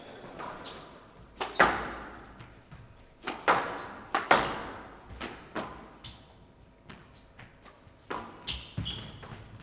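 A squash rally: a series of sharp strikes of racket on ball and ball on wall, echoing in the court, coming irregularly about a second apart. There are brief high squeaks near the end.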